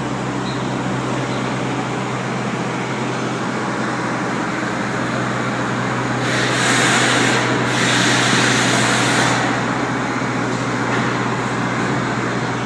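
Steady machine hum of a JLG boom lift running with its basket aloft. About halfway through, a hiss rises over it for about three seconds, with a short break in the middle.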